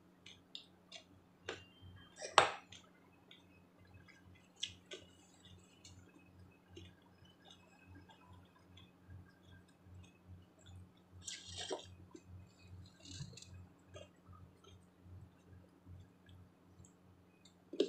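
Close-up chewing of a mouthful of vegetable salad, with small wet mouth clicks and smacks throughout. There is a sharp click about two seconds in and a brief crisp burst a little past halfway, over a low steady hum.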